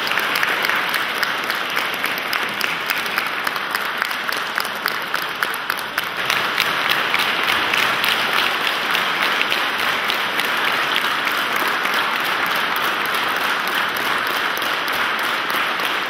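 A large congregation applauding steadily, growing a little louder about six seconds in.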